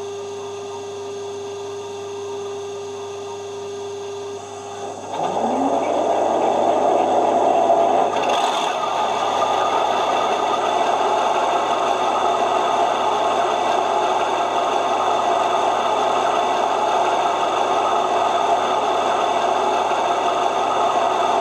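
Sound-fitted 00 gauge Class 52 'Western' diesel locomotive model's DCC sound decoder playing engine sound from a small loudspeaker: a low steady hum, then about five seconds in a short rising whine as the engine sound comes up and settles into a louder steady running note.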